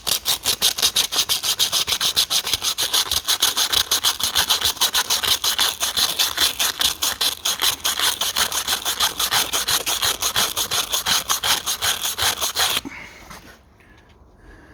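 Wet-and-dry abrasive paper rubbed by hand back and forth on a rusty cylinder bore of an Austin K5 straight-six engine, wetted with GT85, in quick even strokes that stop suddenly about 13 seconds in.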